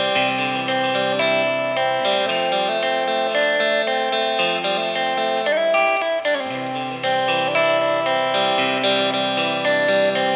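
Electric guitar, a Fender Japan ST-62 Stratocaster with Lollar '64 single-coil pickups, played clean through a Fender Blues Jr valve amp with little gain: picked chords and notes ringing over each other, with one note bent about six seconds in.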